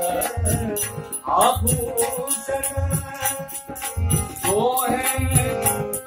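A harmonium's held chords and a man singing a Kumauni Holi song, his voice gliding between notes, over a steady beat of a drum and jingling percussion.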